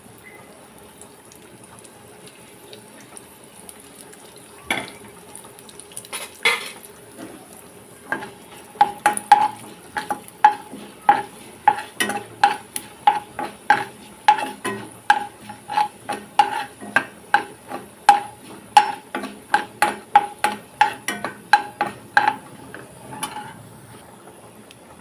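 Coriander seeds roasting in a little oil in a pan, stirred with a spoon that knocks and scrapes against the pan. A few single knocks come first, then a steady run of about two strokes a second that stops shortly before the end.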